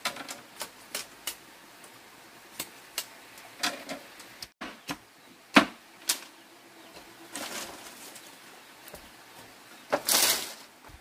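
Split bamboo strips and poles clacking and knocking against each other as they are picked up and handled, with one sharp, loud knock a little past halfway. Near the end comes a longer clatter as a bundle of strips is laid down on a bamboo slat platform.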